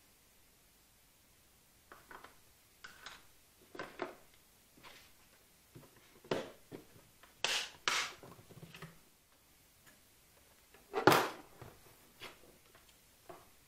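A plastic repair kit's hot stapler, its power unit and its hard plastic carrying case handled on a workbench: scattered clicks, knocks and rattles with short pauses between them. The loudest is a clatter about eleven seconds in.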